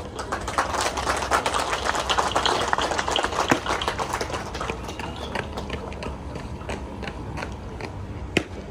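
Audience applauding. The applause swells within the first second and thins out after about five seconds into scattered claps.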